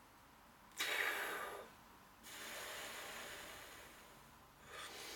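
A smoker taking a sharp breath in off a cigarette, then letting out a long, fading exhale of smoke, with a short breath near the end.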